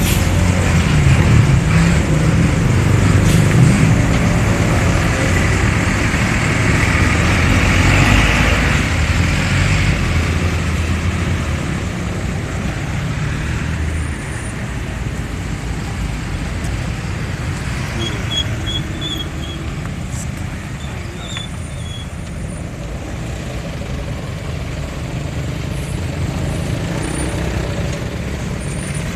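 Large diesel bus engine running loud and close for about the first ten seconds, then fading into steady road traffic noise. No telolet horn melody stands out.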